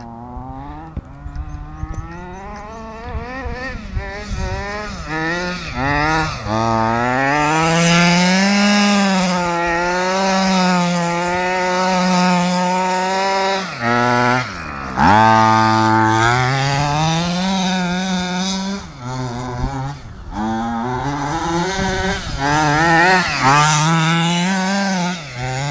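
HPI Baja 5B 1/5-scale RC buggy's two-stroke petrol engine running, its pitch rising and falling again and again as the throttle is worked. About halfway through it drops to low revs and then revs back up quickly.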